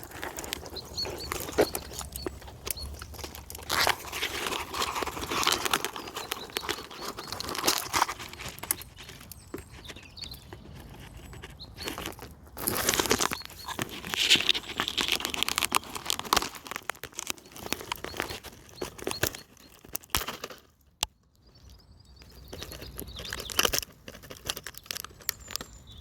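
Leaves and twigs rustling and crackling close to the microphone in irregular bursts, as bush branches are pushed aside and handled. There is a brief lull about twenty seconds in.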